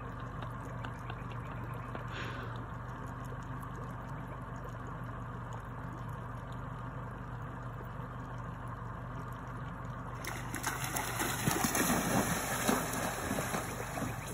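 Shallow water stirred faintly by wading legs over a steady low hum, then, about ten seconds in, loud irregular splashing as a man lunges into the water and grapples with a crocodile.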